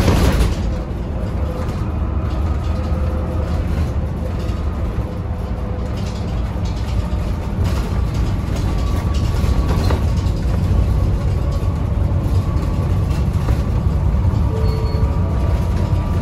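Isuzu Erga KL-LV834L1 city bus under way: a steady low engine drone with faint whining tones over it, and a short click about ten seconds in.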